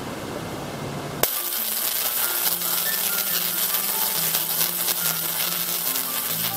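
1.4 kW spark-gap Tesla coil running: a steady rushing hiss, then from about a second in a dense, fast crackle of discharges that reaches high in pitch. Background music notes play underneath the crackle.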